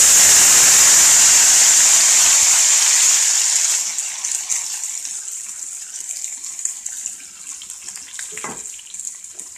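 Boiled chicken pieces tipped into hot oil in a pan, setting off a loud sizzle. After about four seconds it dies down to a quieter, steady frying hiss.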